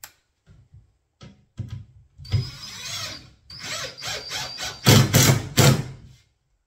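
Makita 18V cordless driver driving screws into a wooden panel, in several bursts after a few light clicks. The motor whines steadily at first, and the loudest bursts come near the end as the screw drives home.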